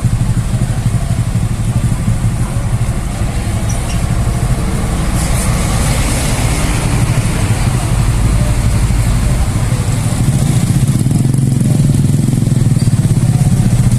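Tour bus diesel engines running as the buses pull out, a deep steady rumble that grows louder over the last few seconds.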